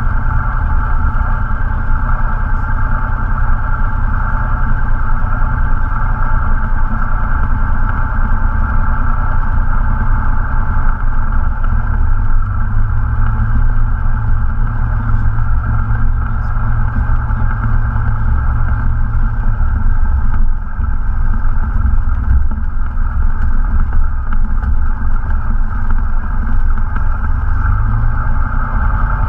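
Cessna 172's piston engine and propeller at low taxi power, heard from inside the cockpit. The engine note is steady and shifts slightly a few times as the throttle is adjusted, with a short drop in level about two-thirds of the way through.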